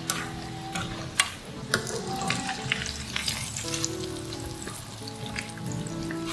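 Battered potato balls deep-frying in hot oil: a continuous sizzle with crackling pops, the sharpest about a second in. Chopsticks turn the balls and a mesh strainer scoops them out of the oil.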